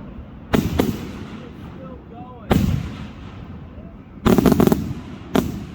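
Large aerial fireworks shells bursting with deep booms, each trailing off in a rolling echo: two close together about half a second in, one at about two and a half seconds, a quick run of several just past four seconds, and one more near the end.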